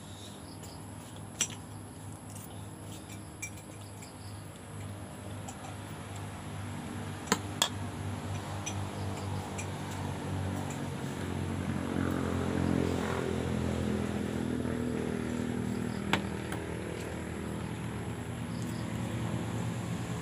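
A low motor drone, typical of a passing motorcycle or other vehicle, swells over several seconds to a peak in the middle and eases off. A few sharp clicks of shells and utensils against the plate come through at intervals, two close together about seven seconds in.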